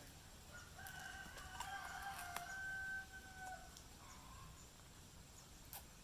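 A rooster crowing once, one long call lasting about three seconds.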